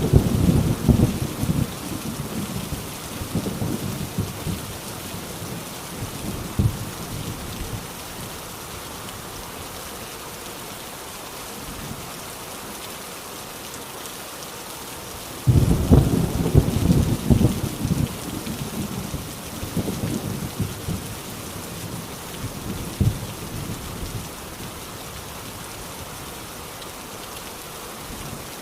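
Heavy rain falling steadily, with thunder. A rumble trails off over the first few seconds, then a sudden thunderclap about halfway through rumbles and crackles for several seconds before fading.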